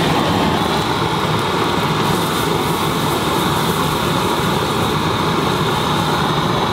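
Steady roar of open commercial gas burners running at full flame.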